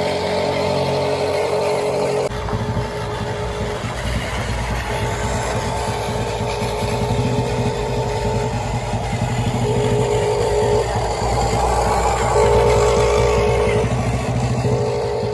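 Small geared electric motors of radio-controlled construction models whining in stretches of one to four seconds, stopping and starting repeatedly as the machines are worked, over a steady low hum.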